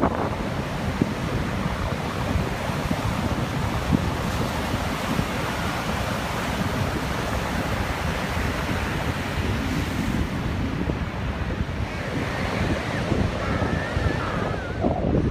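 North Sea surf breaking and washing up over the sand in a steady hiss of foam, with wind rumbling on the microphone.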